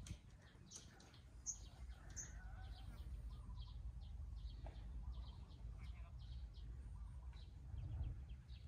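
Small birds chirping faintly in a steady run of short, high chirps, over a low rumble of light wind.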